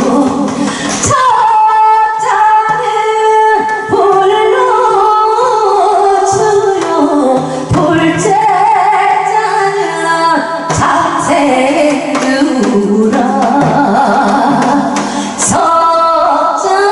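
Korean folk song sung with long, wavering held notes over musical accompaniment, with sharp janggu drum strokes every few seconds.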